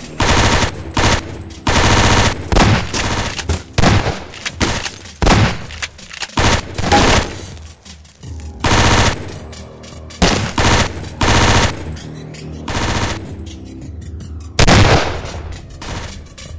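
Automatic-gunfire sound effects dubbed over cardboard toy rifles, in about a dozen short bursts of rapid shots, each under a second long. The loudest burst comes near the end.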